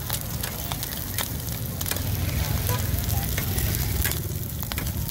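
Corn kernels sizzling in a wide metal pan while a spatula stirs and tosses them, with frequent sharp clicks and scrapes of the spatula against the pan. A low rumble runs underneath.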